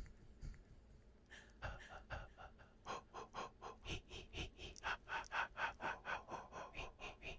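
A person's breathy voice: a fast run of short gasping or whispered sounds, several a second, starting after about a second and loudest past the middle.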